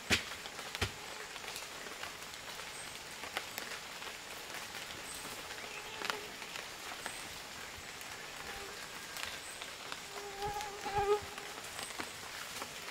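Forest insect hum with scattered soft knocks of a wooden stick digging into loose soil. A brief pitched sound about ten seconds in is the loudest moment.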